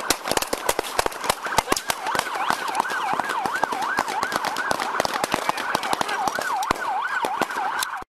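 Police siren wailing, then switching to a fast up-and-down yelp about three cycles a second, heard through a body-worn camera. Dense irregular knocks from the camera jostling on the moving officer sound over it. The sound cuts off suddenly near the end.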